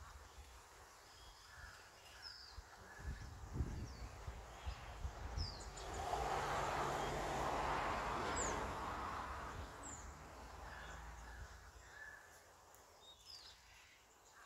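Outdoor background: a few short, high bird chirps scattered throughout, with a rushing noise that swells about six seconds in and fades away by about ten seconds, over a low rumble.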